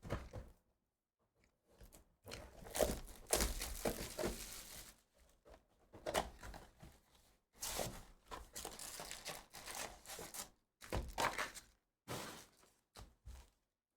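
Foil trading-card pack wrappers being torn open and crinkled, with thunks of packs and cards being handled, in several separate bursts with short pauses between them.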